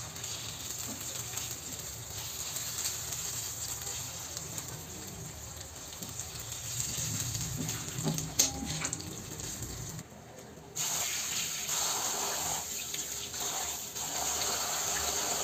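Fish curry simmering in a frying pan as a wooden spatula stirs it, with one sharp knock about eight seconds in. About ten seconds in this gives way to a louder, steady rush of tap water pouring into a metal bowl as hands wash bottle gourd leaves.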